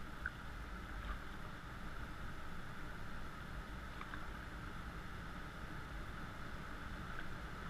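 Steady faint wash of river water along a raft's pontoon as the raft drifts downstream, with a couple of faint short ticks.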